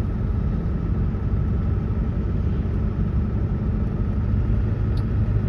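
Steady engine and road noise heard from inside the cabin of a moving vehicle: an even low rumble that does not change.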